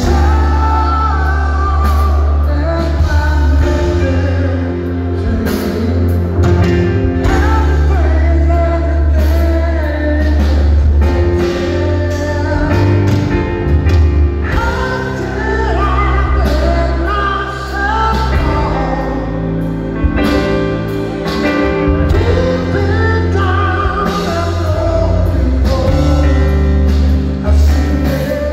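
Live rock band playing a slow song: a man sings lead over keyboard chords, with a steady bass line and drums. It is heard from the audience in a large hall.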